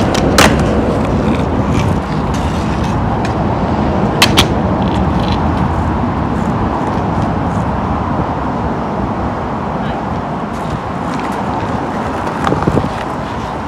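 Skateboard wheels rolling over rough asphalt, a steady rumble, with a sharp clack about half a second in, a quick double clack around four seconds in, and a few lighter clicks near the end.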